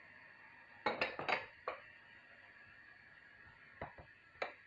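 Kitchen bowls and dishes being handled: a cluster of four light clinks and knocks about a second in, then three fainter ones near the end, over a quiet room background.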